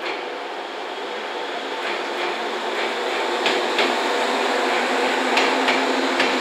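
JR West 103 series two-car electric train pulling away, its running noise and motor hum growing louder with a slowly rising tone. Sharp clicks come from the wheels passing over rail joints, several in quick succession in the second half.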